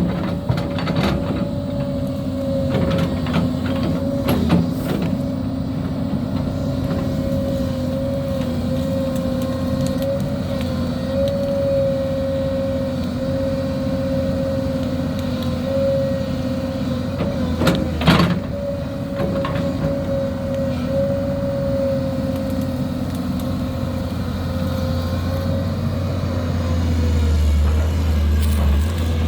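Engine of a piece of heavy machinery running steadily while it works a brush pile, with a slightly wavering whine over a low hum. There is one sharp clank about two-thirds of the way through, and the engine grows louder near the end.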